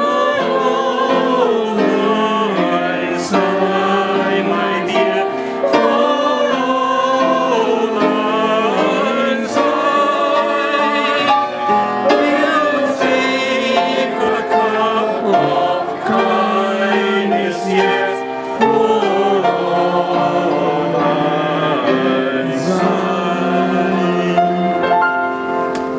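A group of people singing together, accompanied by an upright piano.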